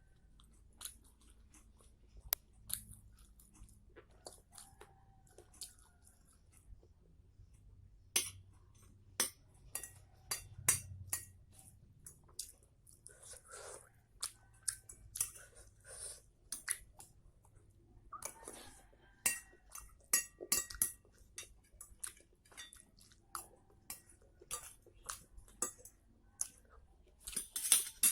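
Close-up mukbang eating: a person chewing mouthfuls of mie nyemek, saucy noodles, with many small mouth clicks. Cutlery clinks a few times against the dish past the middle.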